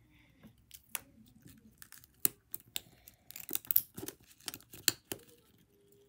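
Plastic and tissue paper being handled and crinkled by hand, with irregular sharp clicks and crackles that grow busier and louder about halfway through.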